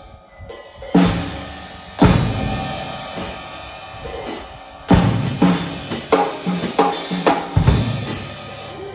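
Acoustic drum kit being played: loud accented hits about one and two seconds in that ring on, a few lighter strokes, then a fast run of drum and cymbal hits from about five seconds in, ending on a heavy low hit.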